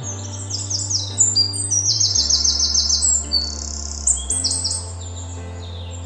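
A songbird singing a string of high chirps and a fast trill of about ten notes a second, ending near five seconds in, over soft background music of low held notes.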